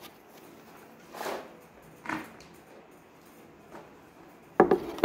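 Plastic storage boxes being handled on a desk: a couple of soft sliding scrapes, then a louder clatter as a box is knocked or set down near the end.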